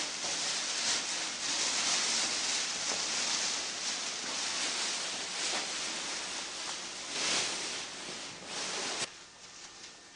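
A steady rushing hiss of noise that swells now and then and cuts off sharply about nine seconds in, leaving a quieter background with a few faint clicks.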